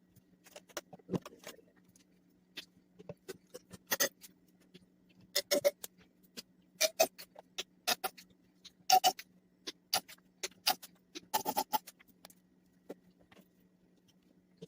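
Irregular knocks, clunks and clinks of jars, bottles and food containers being handled and moved around in a refrigerator, some with a short ringing tone, over a steady low hum.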